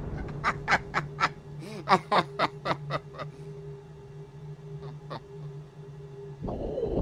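Cartoon sound effects: a quick run of about ten short squeaky honks, roughly four a second, and two more a little later, over a steady low electric hum. The hum cuts off near the end, when a louder noisy sound comes in.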